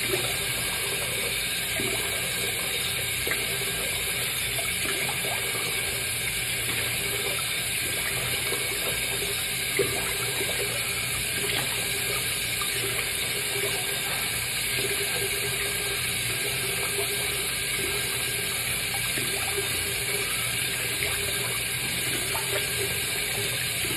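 Bathroom tap running steadily into a sink while a face is rinsed, with a few small splashes now and then.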